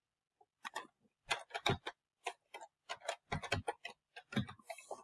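Typing on a computer keyboard: a run of sharp key clicks, several a second, in irregular bursts with short pauses between them.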